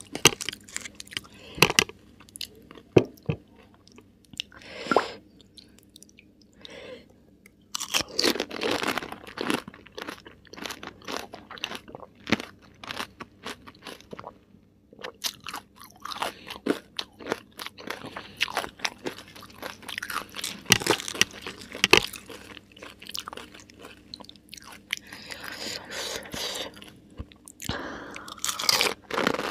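Close-miked crunching and chewing of pani puri: crisp fried puri shells, filled with mint water, cracking as they are bitten. The crackles come in irregular clusters with short quieter pauses between mouthfuls.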